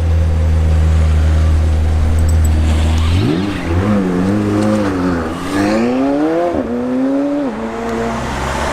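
McLaren 720S twin-turbo V8 running with a steady low rumble, then about three seconds in it revs up and accelerates away. The pitch climbs and drops sharply at each upshift, twice near the end.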